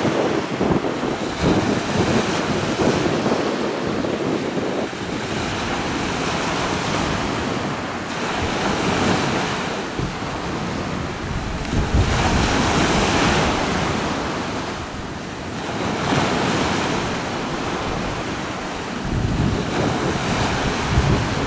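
Wind buffeting the microphone over the rush of river water, rising and falling in swells with no clear engine note.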